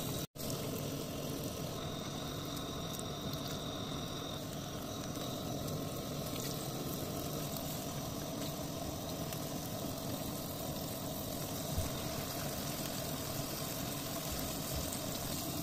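Flour-coated anchovies deep-frying in hot oil in an aluminium pan: a steady, even sizzle and bubbling. The sound drops out for an instant just after the start.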